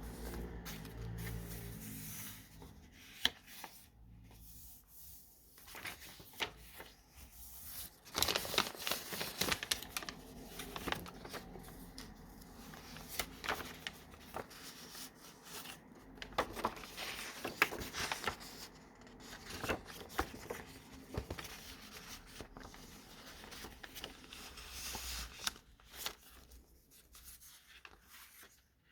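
Paper pages and inserts of a handmade junk journal rustling and crinkling as they are turned and handled, with sharp page flaps and soft taps. The rustling is busiest about eight to eleven seconds in and again around sixteen to eighteen seconds.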